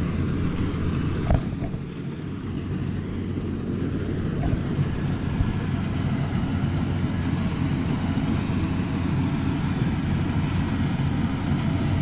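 A steady low rumble of wind and movement on the microphone as the camera is carried through standing rice, over a constant low engine drone from a rice combine harvester in the field. There is one brief knock about a second in.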